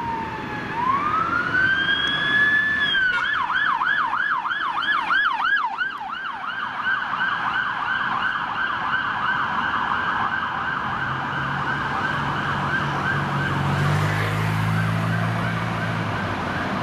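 Police car siren: one slow rising wail, then switching about three seconds in to a fast yelp that keeps going and slowly fades as the vehicle moves away. A vehicle engine's low hum joins near the end.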